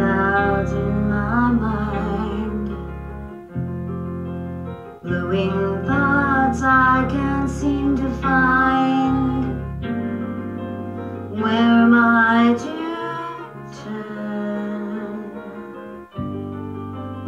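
Music: a woman singing a song in phrases with short pauses between them, over a keyboard accompaniment.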